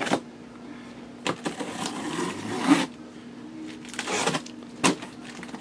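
Hands rustling and scraping over a large plastic-wrapped cardboard shipping box, in a few noisy bursts, the longest lasting about a second in the middle, with a sharp crinkle near the end.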